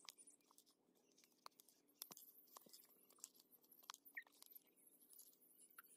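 Faint, scattered clicks and wet squelches of a steel spoon stirring chunks of raw green mango in spiced mustard oil in a steel bowl; otherwise near silence.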